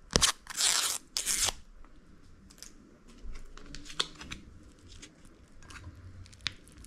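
Foil MRE entree pouch torn open by hand in three quick rips within the first second and a half, followed by faint crinkling of the pouch as it is handled.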